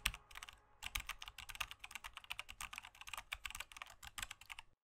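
Rapid keyboard typing: a fast, uneven run of key clicks with a brief pause after the first stroke. It stops abruptly near the end.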